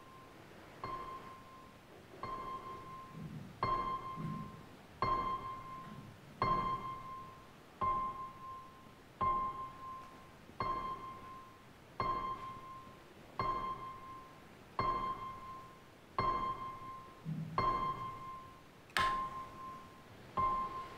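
Suspenseful film score: one high piano-like note struck over and over, about every one and a half seconds, each note ringing and fading, with a sharp click near the end.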